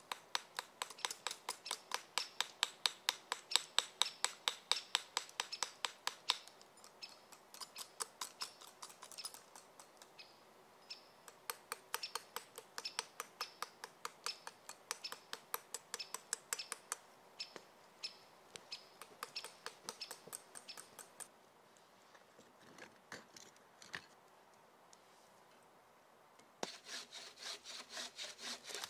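Rapid, even back-and-forth strokes of a hand tool cutting or scraping, about five a second, strongest at first, then lighter. They stop for a few seconds and start again near the end.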